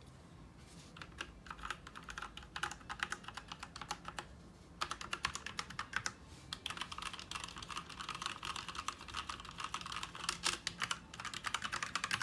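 Drevo Tyrfing V2 mechanical keyboard with red linear switches being typed on in fast runs of keystrokes, with a short pause near the start and another about four seconds in. The owner calls its sound horrible.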